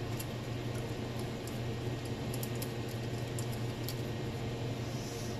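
Faint, scattered light clicks and taps of metal as hands turn and handle a turbocharger's housing, over a steady low hum.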